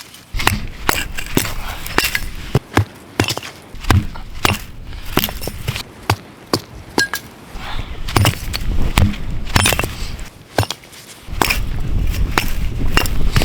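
Small firewood being split into kindling: a run of irregular sharp knocks and cracks as the wood is struck and splits, several a second.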